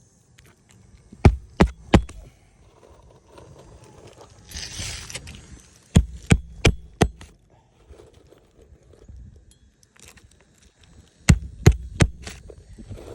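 Hammer driving roofing nails into an asphalt shingle: three groups of quick strikes, three or four blows each, with a short scraping rustle of the shingle between the first and second groups.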